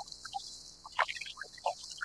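Water lapping and plinking against a plastic kayak hull in small, irregular drips and plops, loudest about a second in, over a steady high hiss of a cicada chorus.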